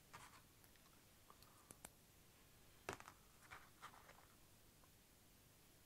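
Near silence broken by a few faint clicks and scrapes of small metal parts being handled during kit assembly.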